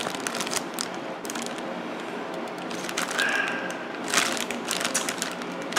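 Clear plastic bag around a plastic model-kit part crinkling and crackling as it is handled and turned over, many small crackles close together.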